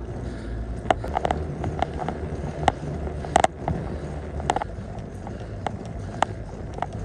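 Bicycle in motion: irregular clicks and rattles from the bike, over a steady low rumble of wind on the microphone.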